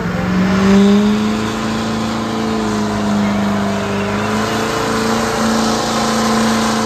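Pulling truck's engine at full throttle under load while dragging the weight sled, the revs climbing a little about a second in and then held steady at a high pitch.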